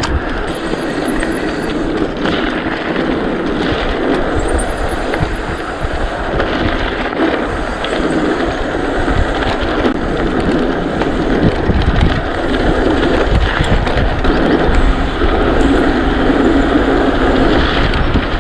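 Mountain bike descending at speed: wind rushing over the camera microphone and tyre noise, with scattered knocks from the bike over the track.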